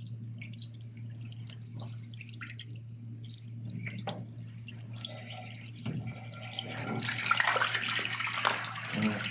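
Water left in a washing machine draining out of its opened drain cap at the bottom. It comes as scattered drips and trickles at first, then runs as a fuller, splashing stream from about two-thirds of the way in.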